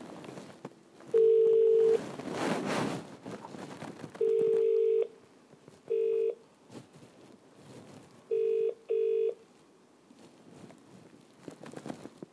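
Electronic telephone-style beeps: a low steady tone sounding several times, two long beeps of nearly a second, then a short one, then two short ones close together. Rustling noise sits between the beeps.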